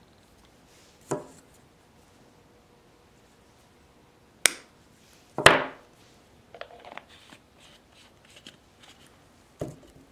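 Small objects handled on a tabletop: a few sharp knocks, the loudest about five and a half seconds in, then a run of light taps and clicks.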